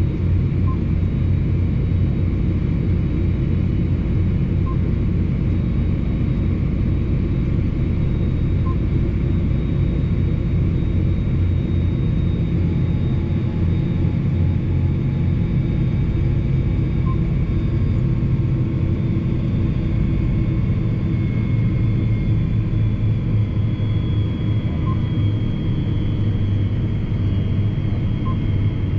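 John Deere 8245R tractor driving on the road, its diesel engine and drivetrain heard from inside the cab as a steady deep drone with a faint high transmission whine. A few small clicks sound now and then.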